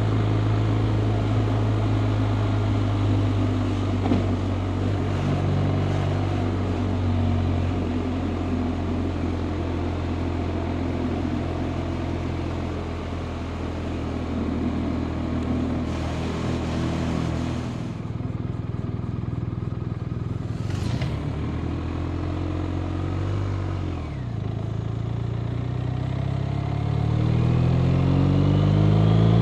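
BMW R 1250 RT's 1254 cc boxer twin engine running steadily under way, dipping briefly in pitch a little over three-quarters of the way through, then revving up and growing louder near the end as the motorcycle accelerates.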